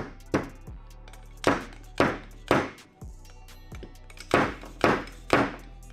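Metal seal driver slide-hammered along a motorcycle fork tube, knocking sharply eight times, mostly in quick runs of three about half a second apart, as it drives the fork oil seal into the upper tube.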